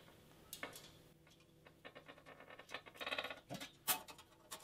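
Small metal parts and a chrome wire rack being handled: light clicks and taps, a short rattle about three seconds in and a sharper click near four seconds, as knurled screw nuts are fitted onto the rack's bracket.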